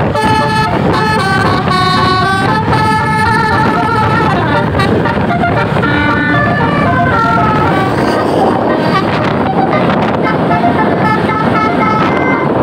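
Tourist bus's 'telolet' multi-tone musical horn playing a melody of quick stepping notes for about seven seconds, over a steady rush of engine and road noise. After that the noise takes over and fainter horn notes continue.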